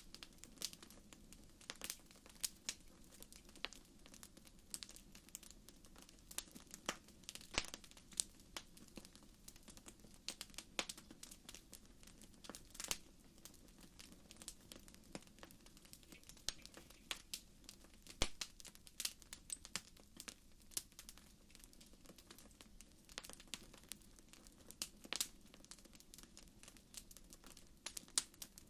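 Wood campfire crackling, with irregular sharp pops and snaps scattered throughout over a faint steady low rush.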